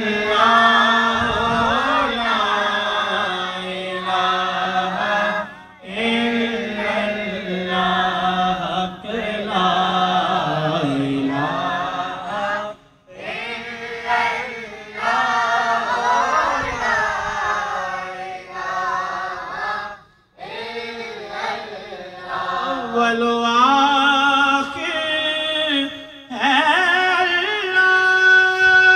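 Urdu naat sung by a man into a microphone, with a group of boys singing along: long, ornamented melodic phrases with short breaks about every seven seconds.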